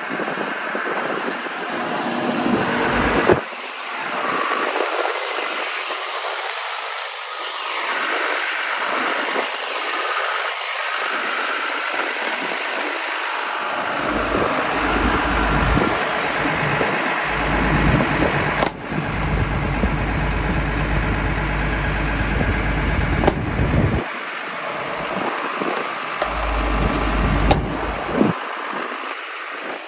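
Hyundai R230L crawler excavator's diesel engine running steadily, with stretches of heavier low rumble partway through.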